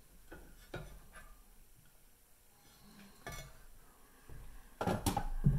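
Light clicks and small knocks of hand-tool work on an outboard propeller, a wooden 2x4 held against the blades while the prop nut is tightened, then a louder clatter of wooden knocks near the end as the board is lifted off and put down.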